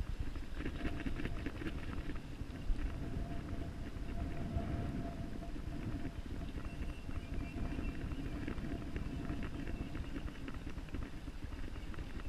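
Steady low rumble of river current and wind on the microphone, with bursts of fast clicking about a second in and again near the end.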